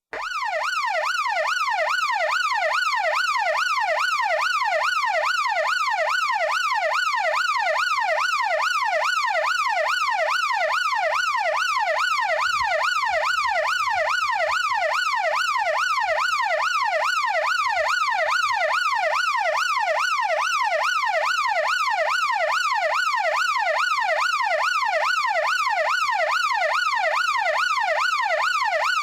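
Emergency vehicle siren in yelp mode, heard from outside: a loud wailing tone that sweeps rapidly and evenly up and down, about three times a second, without a break.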